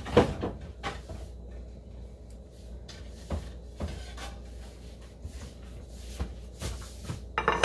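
Kitchen cupboard door opening and closing and a plate being taken out: scattered knocks and clicks, with a louder clatter near the end.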